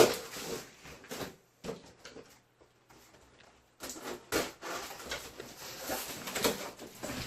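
Cardboard shipping box being opened with a screwdriver in place of a knife: scraping, tearing and rustling of cardboard and packing tape. A sharp knock comes at the start, then a near-quiet pause about two to four seconds in, before denser rustling and scraping with a few harder knocks.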